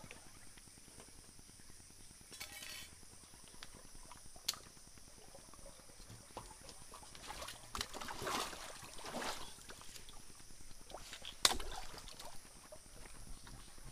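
Shallow stream water splashing and gurgling as hands work a bamboo pipe in it, busiest around the middle, with a few sharp knocks, the loudest near the end. A steady high hiss runs underneath.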